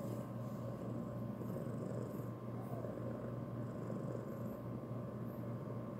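A domestic cat purring steadily, a low continuous rumble close to the microphone.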